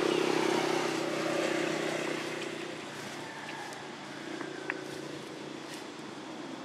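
A motor vehicle's engine running, loudest at the start and fading over the first three seconds into a steady background hum, with one sharp click about two-thirds of the way in.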